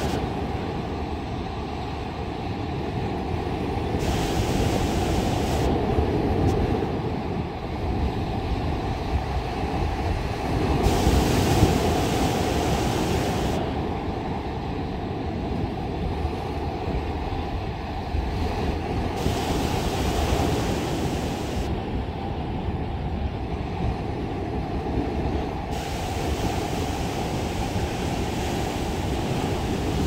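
Sea surf breaking and washing up a sandy beach: a constant low rumble, with the hiss of a wave running up the shore swelling about every seven or eight seconds, four times.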